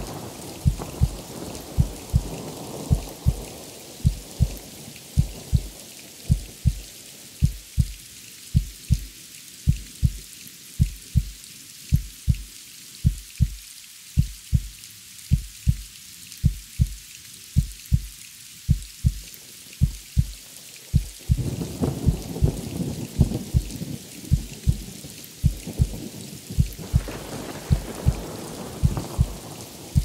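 Heartbeat sound effect, a steady lub-dub of paired low thumps, over steady rain. Rolls of thunder fade out early on, return about two-thirds of the way in, and come again near the end.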